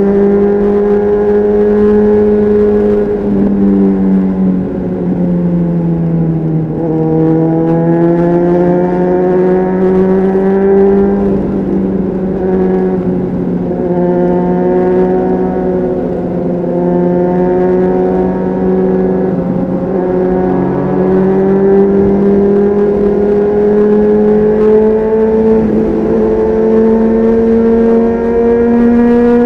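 Honda CBR600RR inline-four engine through an aftermarket Leo Vince exhaust, heard on board while riding at steady revs. Its pitch sags a few seconds in, picks up again, then climbs slowly through the rest.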